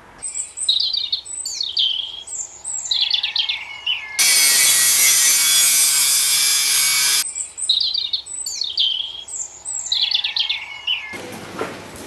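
Short high scraping strokes repeated over and over, broken about four seconds in by an angle grinder cutting metal, loud and steady for about three seconds before it stops and the scraping strokes resume. Near the end the sound changes to an even background noise.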